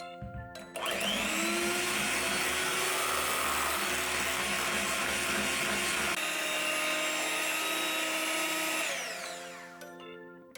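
Electric hand mixer running at high speed, a steady motor whine that shifts in tone about six seconds in, then winds down with a falling pitch near the end as it is switched off.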